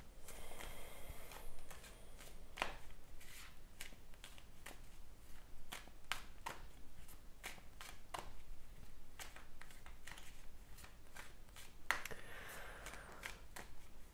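A deck of tarot cards being shuffled by hand: irregular soft flicks and slaps of the cards against each other.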